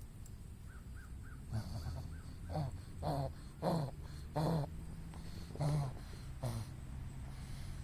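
A dog having a bout of what the owner takes for a reverse sneeze: about seven loud, harsh breaths in through the nose in a run, half a second to a second apart.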